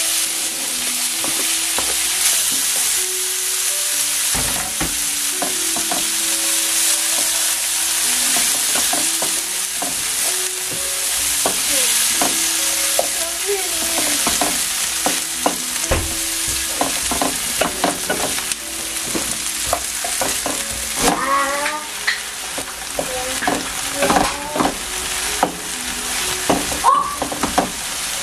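Chopped bell pepper and onions sizzling as they fry in a pan, with a utensil stirring and scraping against the pan. The scraping becomes more frequent in the second half.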